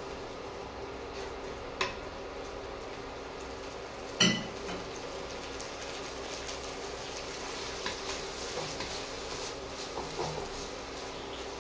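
Sliced onions and chilli paste frying in a wok while a wooden spatula stirs and scrapes through them. The spatula knocks sharply on the wok about four seconds in, with a lighter knock shortly before and a run of small scrapes near the end.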